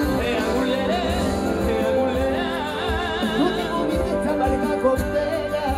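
Live pop band playing on an outdoor stage, with a singer holding wavering notes with vibrato over the music.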